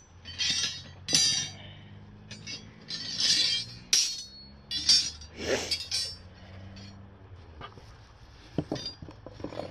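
Steel rebar clinking and scraping against a steel pipe as short pieces are bent over a wooden jig. The clinks come separately, most of them in the first six seconds, with a couple more near the end.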